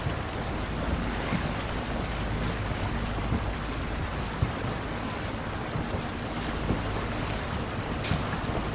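Rigid inflatable boat's engine running slowly at low revs, a steady low hum, under wind rushing over the microphone and waves against the hull.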